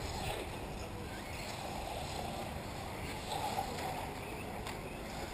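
Steady, faint running noise of radio-controlled off-road racing cars on a dirt track.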